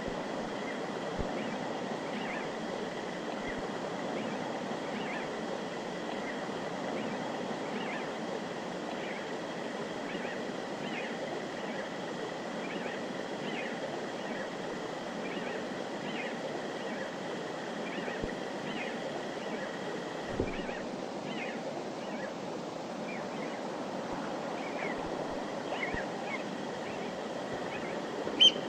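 Clear mountain river flowing in a steady rush. Faint high chirps repeat about once a second over it. A dull thump comes about two-thirds of the way in, and a sharp click near the end.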